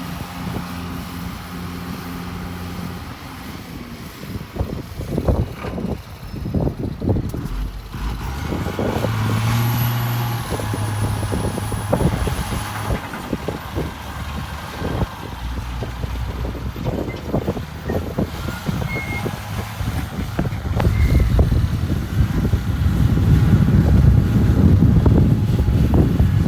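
Heavy machinery engine running, with repeated clanks and knocks. The engine grows louder and deeper about 21 seconds in.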